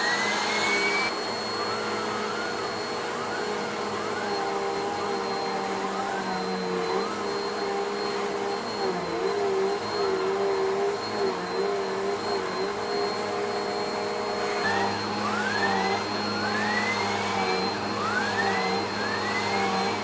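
Bissell PowerForce Helix Turbo bagless vacuum cleaner running steadily with its spinning brush tool worked over a fabric sofa cushion. A whine above the motor note repeatedly dips and climbs again, with rising glides about once a second near the end, as the brush slows under pressure and spins back up.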